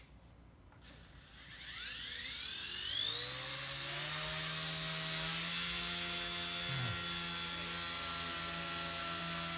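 Small electric RC helicopter (K110) spooling up, its motor whine rising quickly in pitch over a couple of seconds. It then holds at a steady whine with rotor hum, dipping briefly about seven seconds in.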